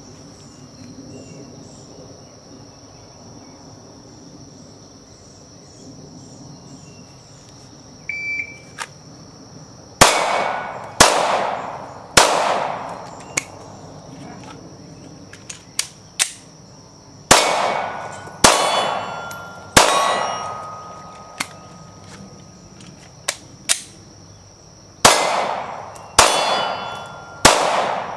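A shot timer beeps once about eight seconds in, then a Glock 19 fires nine 9mm shots in three quick strings of three, with a few lighter clicks between the strings. Some shots are followed by steel targets ringing on a steady tone. The spacing from the beep to the last shot matches a run of about 19.4 seconds.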